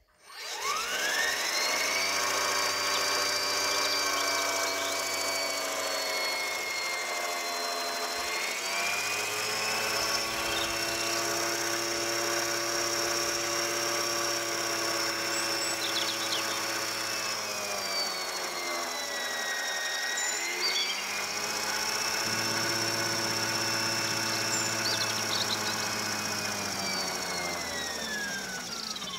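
Lexus RX450h rear electric drive motor spinning, a whine made of many tones together. It spins up quickly at the start, rises in pitch about eight seconds in, drops back around eighteen to twenty seconds, rises again, and winds down near the end.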